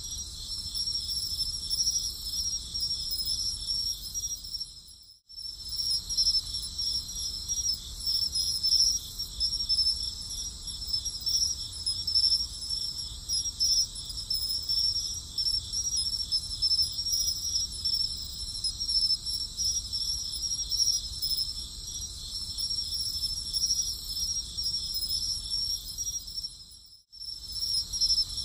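A chorus of crickets chirping steadily in fast, dense pulses. It cuts out for a moment about five seconds in and again near the end, then resumes.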